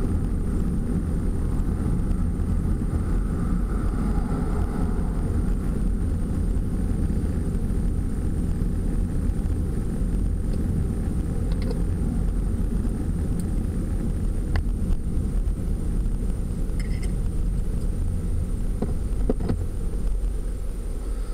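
Van driving along a road, heard from inside the cabin: a steady low road and engine rumble with a few light clicks. The rumble starts to ease at the very end as the van slows for traffic.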